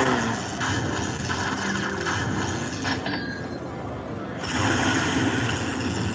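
Lightning Link Tiki Fire slot machine playing its bonus win count-up sounds as the win total climbs after the free spins are completed.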